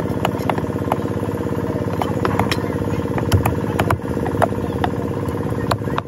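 Heavy curved knife chopping fish on a round wooden block, sharp knocks about two or three a second at an uneven pace. An engine idles steadily underneath.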